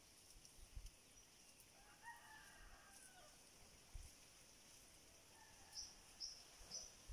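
A rooster crows once, faintly, about two seconds in, over near-silent outdoor quiet. Three short high chirps follow near the end.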